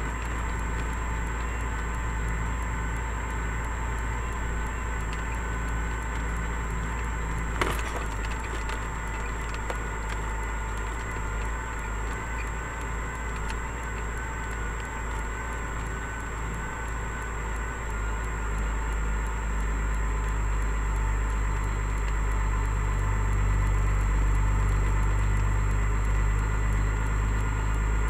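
Kenworth road train's diesel engine running with a low rumble from the truck driving on a dirt track, growing louder in the second half. A single sharp knock about seven or eight seconds in.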